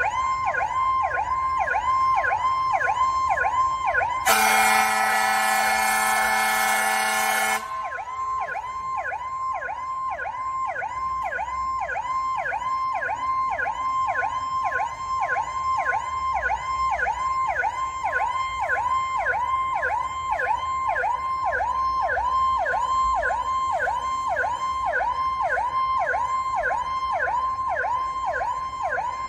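Fire engine's electronic siren in a fast, repeating yelp. About four seconds in, a loud steady air-horn blast of about three seconds sounds over it and then cuts off.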